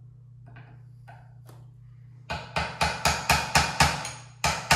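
Hammer tapping a 1/16-inch steel pin punch to drive out the sight-hood pin at the muzzle of a Spanish M1916 Mauser: after a few faint clicks, sharp metallic strikes come at about four a second from about halfway in, pause briefly, then start again at the end. The pin is stuck fast and not yet moving.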